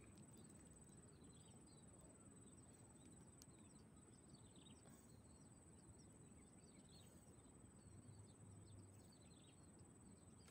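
Near silence: faint outdoor ambience with scattered short, high chirps from birds and insects and a steady thin high-pitched tone.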